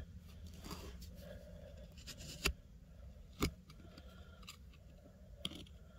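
Faint scraping and picking at packed dirt with a hand tool, digging around a quartz crystal, with three sharp clicks about two and a half, three and a half, and five and a half seconds in.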